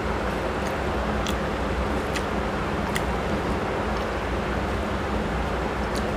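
Steady hiss and low hum, over which a few faint, sharp, wet clicks come from eating rice and curry by hand.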